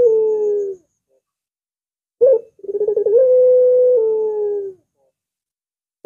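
Ringneck dove (puter) cooing: the tail of one long coo, then after a pause a short opening note, a quick stuttering roll and a long drawn-out coo that steps down a little in pitch near its end.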